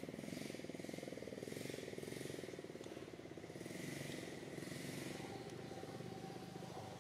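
A small engine running steadily with a rapid, even throb, over short intermittent bursts of high hiss.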